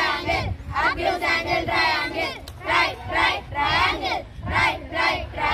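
A group of schoolboys chanting together in chorus, in short phrases with brief pauses between them.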